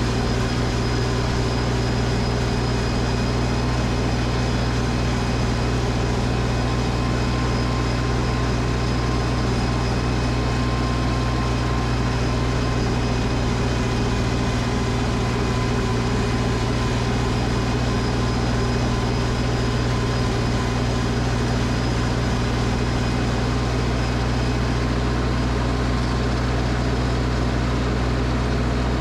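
Gas snowblower engine running steadily at a constant speed, a low, even hum that doesn't change.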